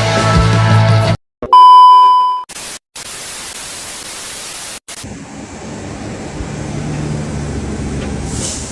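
Rock music cuts off, followed by a loud steady beep tone lasting about a second, like a test-tone or censor bleep. A couple of seconds of static-like hiss come next, then open-air road ambience with a low engine hum.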